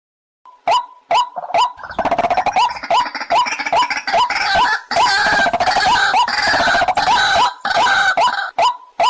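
White-breasted waterhen calling: a series of short, repeated croaking notes about two a second, starting about half a second in. From about two seconds in they thicken into a loud, dense chorus of overlapping calls, then settle back to single repeated notes near the end.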